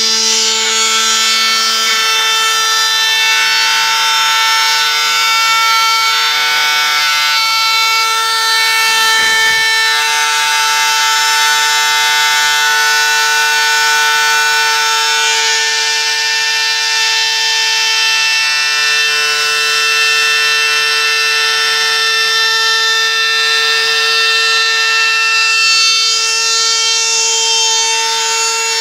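Homemade CNC engraving machine running: a steady, high motor whine with many overtones, its upper tones shifting slightly now and then as the machine works.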